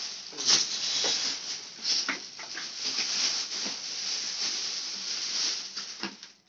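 Large plastic bag crinkling and rustling continuously as a bulky plastic baby walker is pulled out of it, with many short crackles; it dies away near the end.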